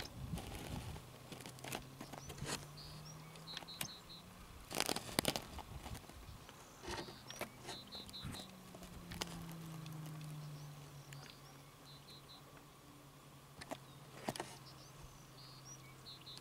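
Short runs of three or four high chirps, repeating every second or two, over a steady low hum, with scattered sharp clicks and rustles. The loudest is a cluster of clicks about five seconds in.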